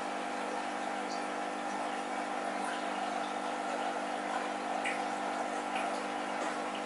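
Aquarium sponge filter bubbling steadily, with the constant hum of its air pump underneath and small scattered pops of bubbles at the surface.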